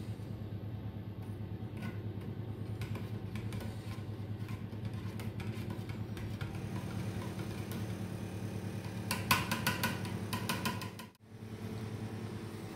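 A metal table knife stirring soup in an opened tin can, scraping and clinking against the tin, with a quick run of sharp clinks about nine to ten seconds in. A steady low mechanical hum lies underneath.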